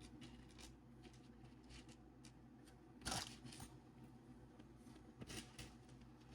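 Faint handling sounds of beads and beading materials: scattered small clicks and a brief rustle about three seconds in.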